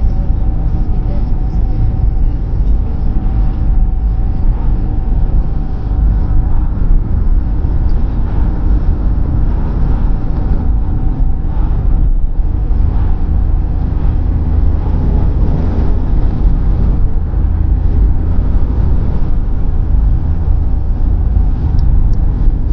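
Car driving along a road, heard from inside the cabin: a steady, heavy rumble of road and engine noise with no change in pace.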